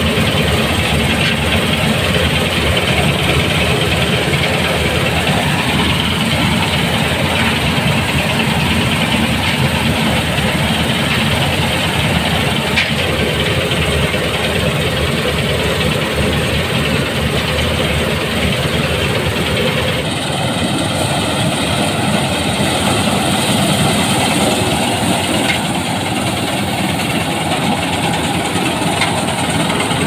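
Kartar 4000 combine harvester running steadily under load while cutting wheat, a dense mix of engine and machinery noise. About two-thirds of the way through, the tone shifts slightly.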